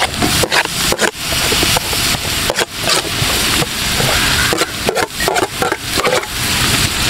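Onions and green chillies sizzling steadily in hot coconut oil in a large aluminium pot. Chopped tomatoes are tipped in from a metal plate, and the hiss is broken by repeated short clicks and scrapes.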